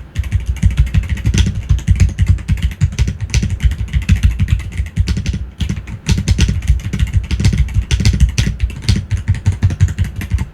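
Akko 5075S gasket-mounted mechanical keyboard with pre-lubed linear Akko Frost Pink switches and silicone foam dampening, being typed on fast. The result is a dense, continuous stream of keystrokes, with most of the sound low-pitched.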